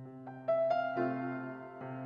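Background piano music: a slow melody of struck notes that ring on, a new note coming every half second or so.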